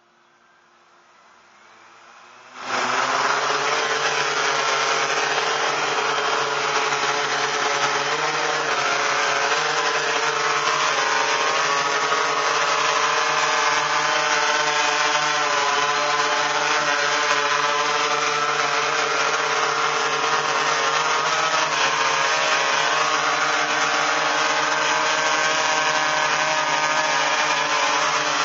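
FPVFactory Mariner waterproof quadcopter's electric motors and propellers running at flight throttle, a loud steady whirring whine made of several tones that waver slightly; it comes in suddenly about three seconds in.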